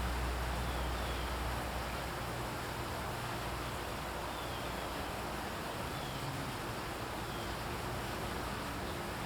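Outdoor yard ambience: a steady hiss, with a low rumble fading away over the first two seconds and a few faint, short, falling chirps scattered through.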